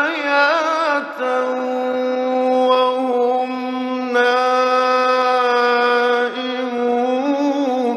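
Male Quran reciter's voice in melodic mujawwad recitation, heard in an old 1960s radio recording. It opens with wavering ornaments, then holds a long steady drawn-out note that steps in pitch a few times. A further ornamented turn comes near the end, and then it breaks off sharply.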